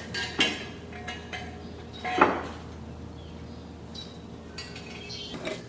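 Metal clanks and clinks of a steel jack stand being set in place under the car, the loudest about two seconds in, over a steady low hum.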